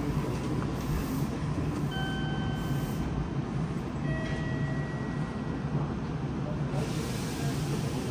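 Yokohama Municipal Subway 3000S car standing at a platform with its doors open: a steady low hum from the stationary train, with a few faint short tones about two and four seconds in.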